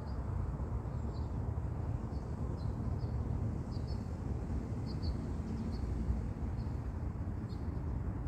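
Outdoor ambience: a steady low rumble, with short high bird chirps every second or so.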